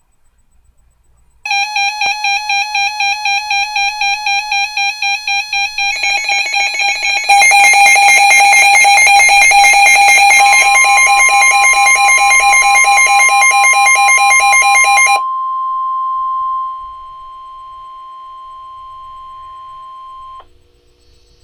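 Electronic alert beeping, a fast warbling pattern of about four beeps a second, with more alarms joining about four and six seconds in, from weather alert receivers sounding for an incoming warning. About ten seconds in the NOAA Weather Radio 1050 Hz warning alarm tone starts, one steady tone that carries on after the beeping stops and cuts off near the end.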